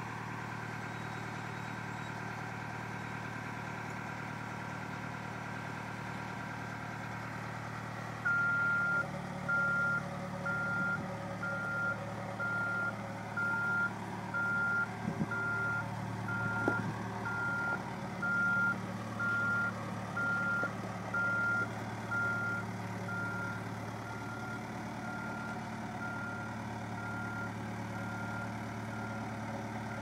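Case 580M backhoe loader's diesel engine running steadily. From about eight seconds in, its reversing alarm beeps about once a second, growing fainter toward the end.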